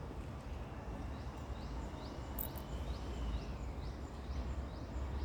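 Outdoor ambience: a low rumble like wind on the microphone, with a small creature's short, high chirp repeating about twice a second.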